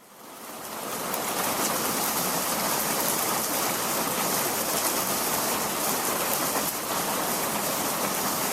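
Steady rain falling, a dense even hiss of drops that fades in over about the first second.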